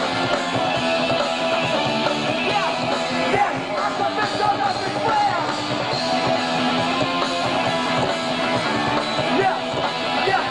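Hardcore punk band playing live: distorted electric guitars, bass and drums, with a singer's vocals over them, heard through a camcorder microphone in the crowd.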